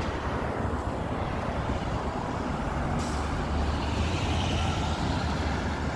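Street traffic with a heavy vehicle's engine rumbling low, and a sudden hiss starting about halfway through that carries on.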